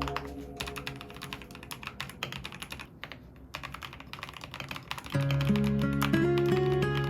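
Rapid typing on the SPM PL87A mechanical keyboard, which has factory-lubricated Haimu sea salt linear switches and PBT keycaps: a steady run of quick key clicks. Background music comes back louder about five seconds in.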